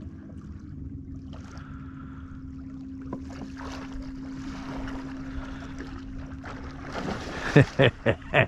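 Light water and wind noise around a drifting kayak under a steady low hum. About seven seconds in, several short, loud bursts of a man's voice exclaiming.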